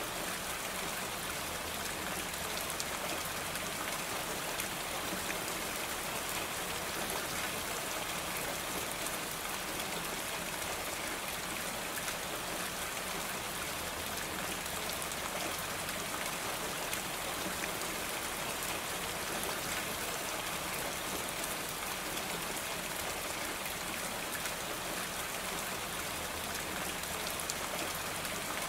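Steady rain falling: an even hiss dotted with many small drop ticks, holding level throughout.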